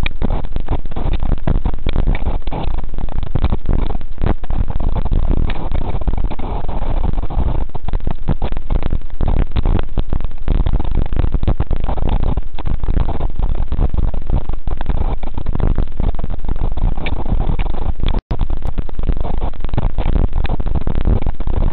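Strong wind buffeting an outdoor camera microphone: a steady, heavy rumble with irregular gusting thumps. The sound cuts out for an instant near the end.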